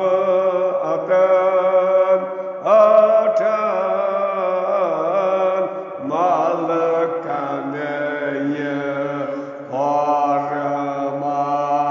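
A man chanting a Kashmiri marsiya, a mourning elegy. He sings long held notes with wavering ornaments, in phrases of a few seconds each, with short breaks between them.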